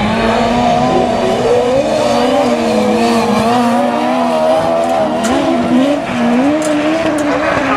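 Autograss race cars' engines running hard around a dirt track, their pitch rising and falling with the throttle as the cars race past.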